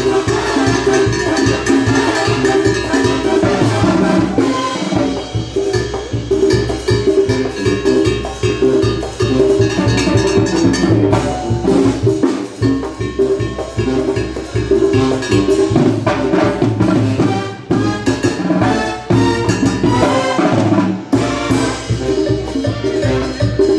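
Live band playing cumbia dance music, with a steady beat of drums and percussion over a pulsing bass line.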